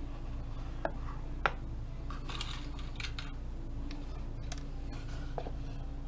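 Light handling noise of a wooden jewelry-box drawer being set onto its pivot dowel: two sharp wooden clicks about a second and a second and a half in, then soft rubbing and small ticks, over a steady low hum.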